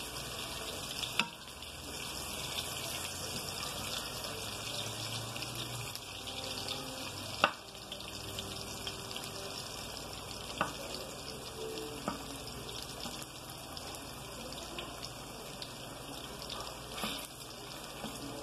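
Plantain slices frying in butter in a pan, with a steady sizzle. A few sharp clicks of the plastic spatula against the pan stand out, the loudest about seven seconds in.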